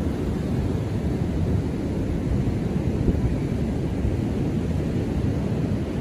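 Ocean surf on a beach with wind buffeting the microphone: a steady low rumble that holds even, with no single wave crash standing out.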